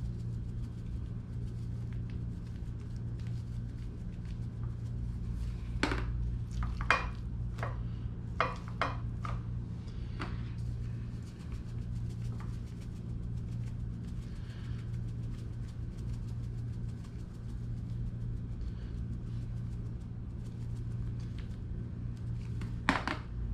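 A handful of short clicks and taps from a plastic seasoning shaker and a plate on a granite countertop as taco seasoning is shaken over fish fillets, bunched about six to ten seconds in with one more near the end, over a steady low hum.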